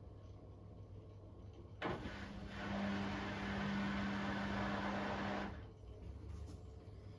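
Beko WTK104121W washing machine's drain pump switching on about two seconds in, running with a steady hum and rushing water for about three and a half seconds, then cutting off. This is the machine pumping water out ahead of the first intermediate spin.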